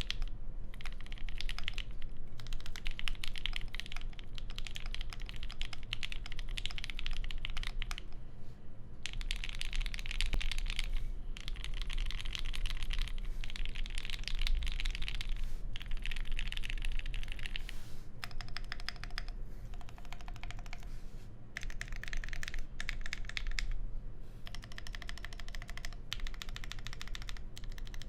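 Fast, continuous typing on a mechanical keyboard with lubed, filmed Alpaca linear switches on a POM plate and GMK keycaps: a soft, muted clacking in runs of a few seconds broken by brief pauses.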